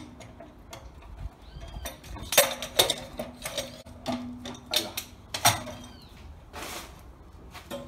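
Sharp metallic clanks and knocks of a Stilson pipe wrench, lengthened with a pipe nipple, gripping and working the seized brass hex head of a water heater's anode rod to break it loose. The strikes come in a quick irregular cluster through the middle, with a short scraping burst near the end.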